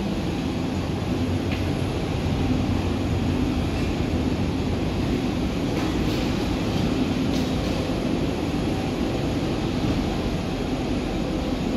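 Steady low rumble with a faint hum: airport apron and aircraft ground noise.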